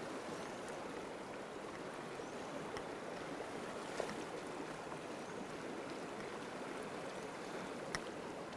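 Small mountain stream running steadily over rocks and around fallen logs, a constant rushing of water. Two short sharp clicks stand out, one about halfway through and one near the end.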